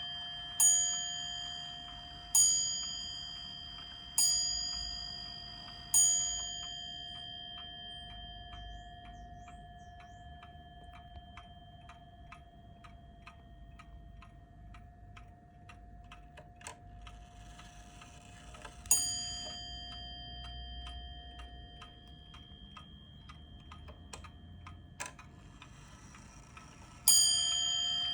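Vintage Dutch FHS Atlas pendulum wall clock striking its top-mounted bell four times, a little under two seconds apart, each ring dying away slowly. Then the movement ticks steadily, with one more bell strike about two-thirds of the way through and another near the end.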